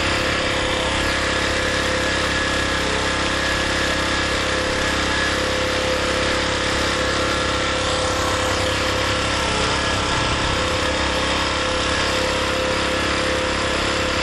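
Small portable generator's engine running steadily on HHO (hydrogen–oxygen gas from an electrolyzer) after its gasoline has run out.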